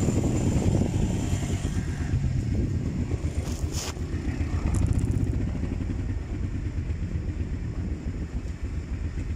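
Quad bike (ATV) engine idling with a steady low rumble. A short sharp knock about three and a half seconds in.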